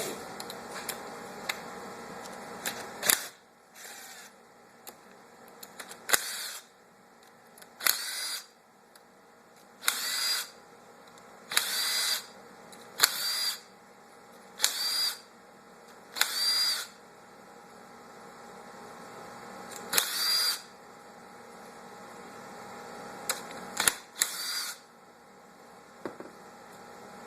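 Small power driver spinning 8 mm bolts out of a Honda CR80 engine cover in about ten short bursts of a second or less, each with a brief rising whine as the motor spins up.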